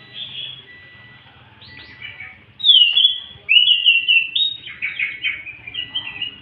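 A caged anis macan (scaly thrush) singing in loud, clear whistled phrases. Quieter twittering in the first half gives way, about halfway through, to a loud falling whistle and then a rapid run of varied warbling notes.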